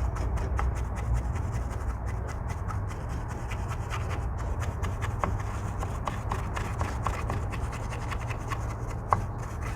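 Wire brush scrubbing rust off a steel brake caliper bracket: rapid, irregular scratching strokes on the metal, cleaning the surfaces where the brake pads slide.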